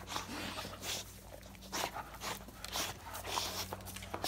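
Great Dane puppy playing up close, making short irregular bursts of noisy breathing and mouthing sounds.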